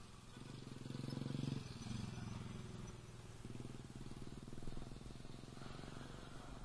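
A motorcycle engine running close by on the road, loudest about a second in and steady again from about midway.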